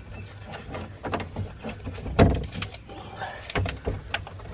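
Scattered light clicks and knocks from a tape measure and marker being handled against a plastic panel, with one heavier thump about two seconds in.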